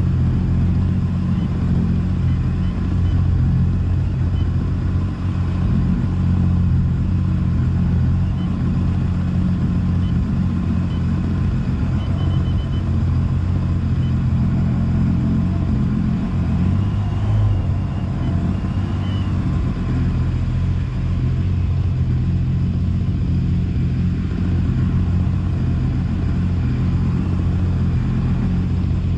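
Jet boat's outboard motor running steadily under way, a constant low drone with an even stack of engine tones.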